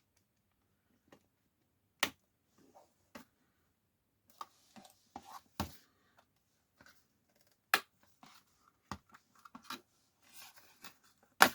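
Scattered sharp clicks and light scraping of small parts and tools handled on an opened tablet. There are four louder snaps among fainter ticks and rubbing.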